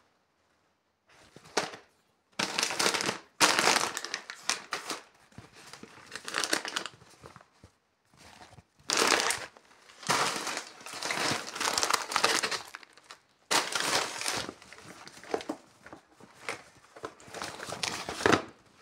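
Plastic snack and cereal packets crinkling while being handled inside a shopping bag, in irregular bursts with short pauses, starting about a second in.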